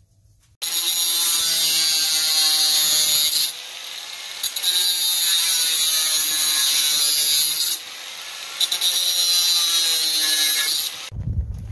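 Angle grinder cutting through metal, a loud steady hiss over a motor whine. It eases off twice for about a second as the cut is repositioned and stops abruptly near the end.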